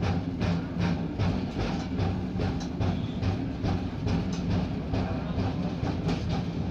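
Passenger train running slowly, heard from inside the coach as a steady low rumble, with background music's even beat of about two to three a second over it.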